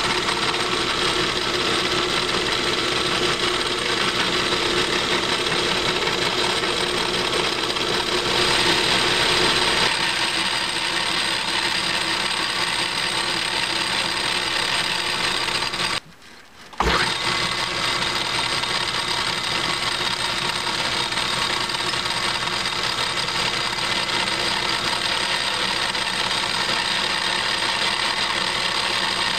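Craftsman/Atlas 618 bench lathe running steadily under power while it takes a facing cut on the end of a metal bar and then center drills it. The running sound drops out for about a second past the halfway mark and then resumes as before.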